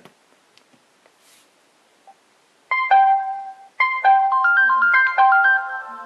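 Video doorbell call ringtone: a melodic electronic tune of piano-like notes starts about two and a half seconds in, set off by pressing the doorbell's call button, and keeps playing.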